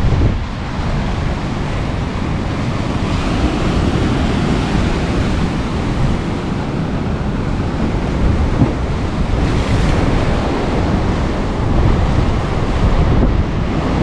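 Rough storm surf breaking and churning against the rocks, with strong wind rumbling on the microphone.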